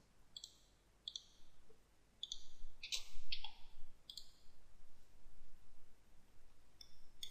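Computer mouse clicking: a handful of short, separate clicks at irregular intervals.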